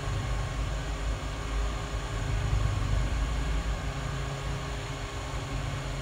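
Hot air rework gun blowing a steady rush of air, heating the charging socket's solder joints on a phone circuit board so the socket can be lifted off.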